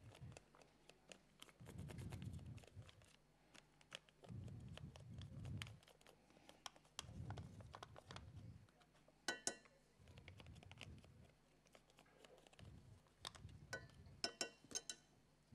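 Faint kitchen handling at a stove: a metal spoon scraping and tapping as sauce is spooned from a tub into a frying pan, with scattered small clicks. Ringing metal clinks about nine seconds in and a cluster of them near the end.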